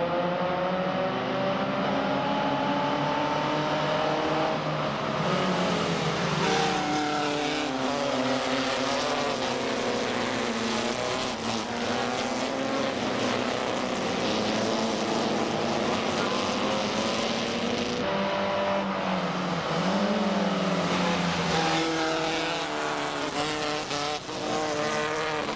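A pack of open-wheel single-seater race cars running at full throttle. The engine notes climb together over the first few seconds as the cars accelerate off the green flag. After that, many engine notes rise and fall over one another as the cars shift and pass by.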